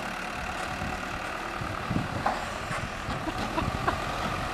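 Telehandler's diesel engine running as the loader works in the snow, with a few light knocks through the middle.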